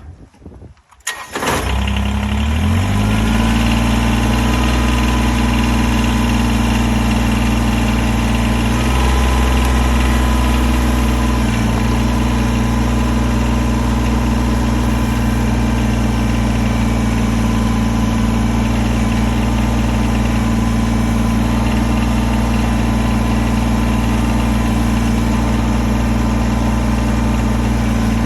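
Kubota BX compact tractor's three-cylinder diesel engine cranking and starting about a second in, then settling into a steady run. It runs briefly louder around nine to eleven seconds in.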